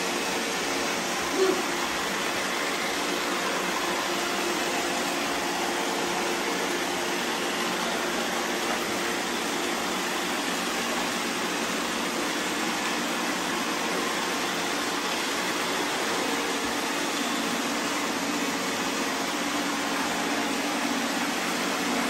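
Several robot vacuums running at once on a tile floor, a steady whir of suction motors and brushes with a faint hum. A brief louder blip about a second and a half in.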